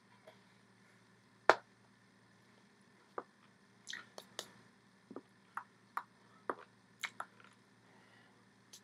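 Hands slapping and tapping against each other and the chest during sign language: about a dozen short, sharp, irregularly spaced smacks, the loudest about a second and a half in, over a faint steady hum.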